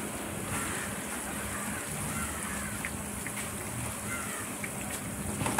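Battered banana slices deep-frying in a wok of hot oil: a steady sizzle and bubbling, with a sharp tap near the end.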